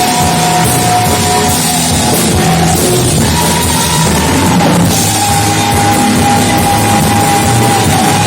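Loud band music with drums and a full, driving rock-style sound, carried by a held melody line that changes note every second or so.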